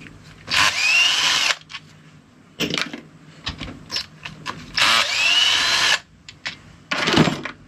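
Cordless drill-driver run in two bursts of about a second each, its motor whine rising as it spins up, taking out the screws that hold an ignition coil on a two-stroke outboard powerhead. Short clicks of handling come between the runs.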